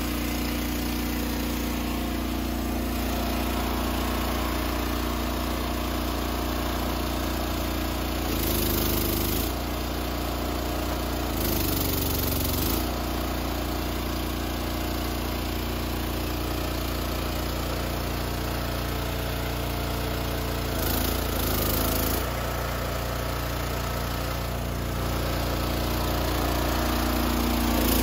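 An engine running steadily at a constant speed. Three times, about 8, 11 and 21 seconds in, its note briefly changes and dips in pitch with a burst of hiss, as though it is being loaded.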